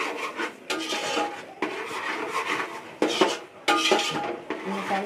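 A spatula scraping and stirring thick spice masala around a metal pot as the masala is fried, with a rasping scrape on each irregular stroke.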